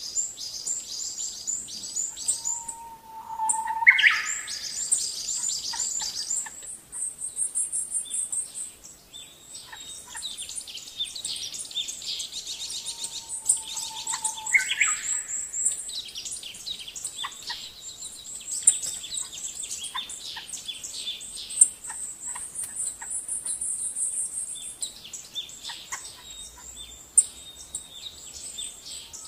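Birds chirping and trilling in a dense, high-pitched chorus, with a lower held whistle that breaks into a quick upward-sliding note, heard twice.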